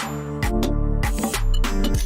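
Electronic background music with a steady beat and sustained keyboard chords.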